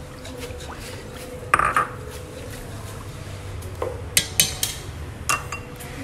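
Chopsticks stirring broth in a stainless steel hot pot, with a liquid swishing and sharp clinks of the chopsticks against the pot's metal side. There is one loud clink about a second and a half in and a quick cluster of clinks around four to five seconds in.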